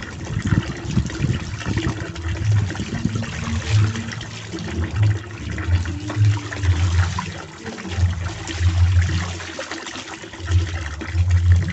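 Hand-washing clothes in a basin of soapy water: wet fabric sloshed, rubbed and squeezed in repeated strokes about once a second, over water pouring steadily from a pipe into a tub.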